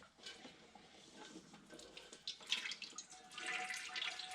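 Engine oil trickling and dripping out of a Porsche 987's oil filter housing as it comes off, growing louder over the last couple of seconds.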